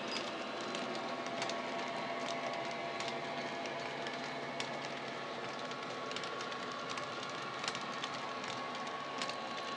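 Model railway freight wagons rolling past, their wheels clicking irregularly over the track joints, over the steady drone of a model Class 57 diesel's ESU sound decoder engine sound played through an EM1 speaker.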